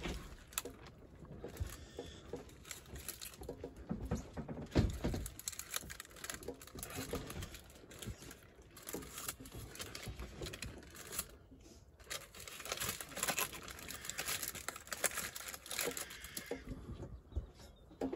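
Plastic sausage packaging crinkling and rustling as it is opened and the sausages are handled, with scattered clicks and a few low knocks as they are laid into the air fryer basket.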